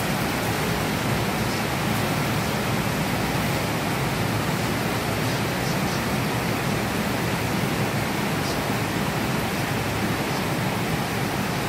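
Heavy rain falling steadily: a dense, even hiss of a downpour with no letup.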